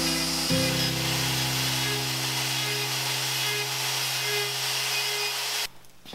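Cordless drill spinning a small sanding disc against a carved walnut lid: a steady motor whine with a hiss of abrasive on wood. The whine restarts about half a second in and cuts off sharply near the end.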